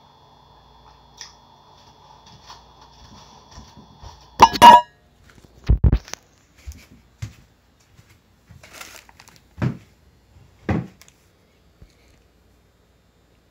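Handling noise as the recording phone is picked up and moved: a loud scrape and clatter against the microphone about four and a half seconds in, a heavy thump near six seconds, then scattered light knocks and two firmer knocks around ten and eleven seconds.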